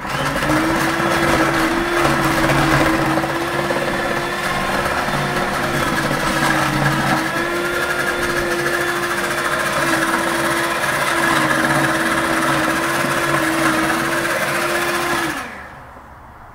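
Electric hand mixer beating cake batter: the motor starts suddenly and runs with a steady whine that dips slightly in pitch now and then, then winds down and stops near the end.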